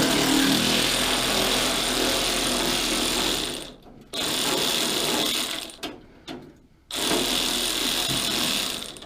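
Cordless power tool running in three bursts of a few seconds each, with short pauses between, while it backs out fender bolts.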